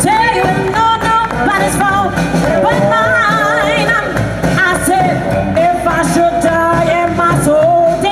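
New Orleans jazz band playing a gospel number live: a woman singing with wide vibrato into the microphone over trombone, trumpet, double bass and drums.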